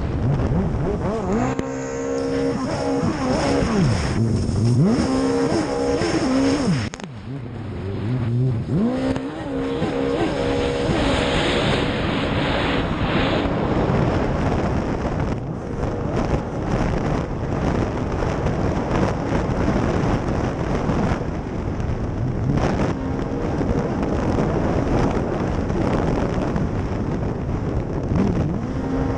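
Racing jet ski engine at high revs, heard from on board. Its pitch dips and climbs again several times in the first ten seconds as the throttle eases and reopens through turns. After that it runs more steadily under a rush of wind and water spray.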